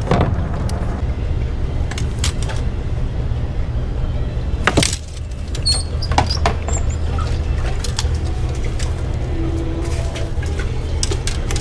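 Boat motor running steadily with a low hum, with scattered sharp clicks and small splashes of water against the hull.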